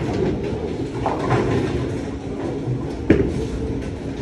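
Bowling alley din: the steady low rumble of bowling balls rolling down the lanes, with one sharp thud about three seconds in.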